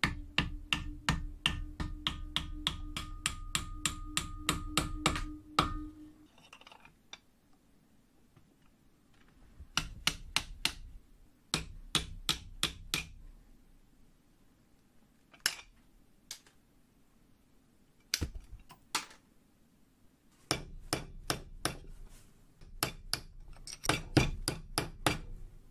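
Small hammer tapping on steel in quick runs of light strikes, about three or four a second, with pauses between the runs. The first long run rings on at a steady pitch under the taps. This is the awl's steel ferrule being worked: the handle is seated and a small pin through the ferrule is peened over.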